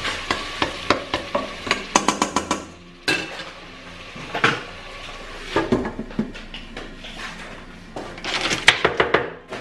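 A cooking spoon stirs and scrapes in a stainless steel pot of grated tomato and onion frying in oil, with a quick run of taps against the pot over the first few seconds and a soft sizzle underneath. Scattered clinks follow as the spoon is set down on a spoon rest and a glass lid is put on the pot.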